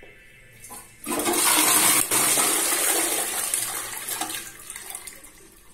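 Toto CW53J close-coupled toilet flushing. A light click is followed about a second in by a sudden rush of water into the bowl, loudest for about a second, then tapering away over the next few seconds.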